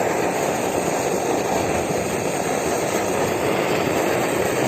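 BRS-8 liquid-fuel camping stove burner running steadily at full output in strong wind, a constant rushing noise with no breaks.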